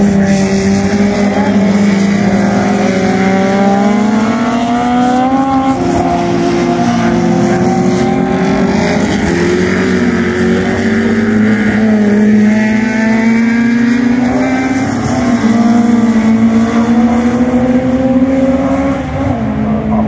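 Historic Formula Junior single-seater racing cars at speed, more than one engine note overlapping in a loud, steady drone. The pitch climbs and drops back several times as the cars change gear and lift for the corners.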